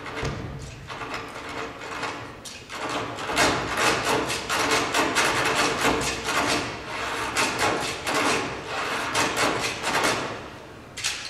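Rapid, rattling wooden clacking percussion over a steady low hum, the recorded accompaniment to a stage dance; it grows louder about three seconds in.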